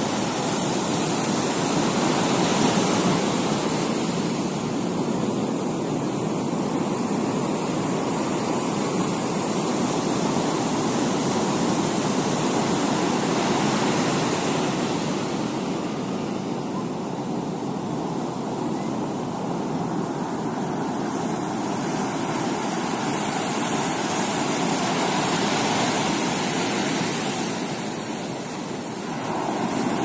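Strong sea waves breaking on a beach: a steady rush of surf that swells louder a few times as bigger waves break.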